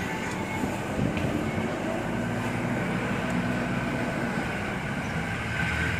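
Steady rumble of a car on the move, engine and road noise heard from inside the cabin.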